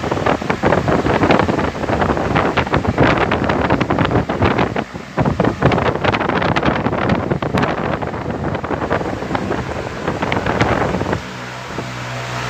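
Airflow from a Ventisol Thor 60 cm wall fan buffeting the microphone: loud, uneven gusty rumble and crackle. About eleven seconds in it drops back to the steady hum of the fan running.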